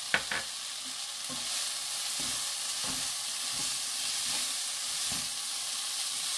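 Bellflower root strips sizzling in a nonstick pan while being tossed with two wooden spoons: a steady high hiss with soft, irregular scrapes and knocks of the spoons. A sharp tap of a spoon on the pan comes just after the start.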